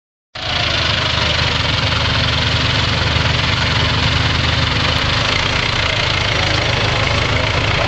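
Vintage grey Ferguson tractor's engine running steadily at low revs, close by, as the tractor drives slowly past.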